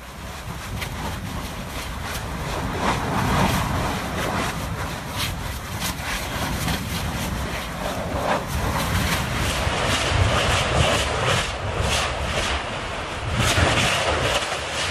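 Lava spattering from a new fissure vent on Kīlauea's East Rift Zone: a steady deep roar with many sharp pops, getting louder after the first couple of seconds.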